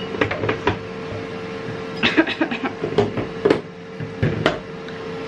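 Steady hum of an air fryer running, with a few short knocks and clicks from handling things close by.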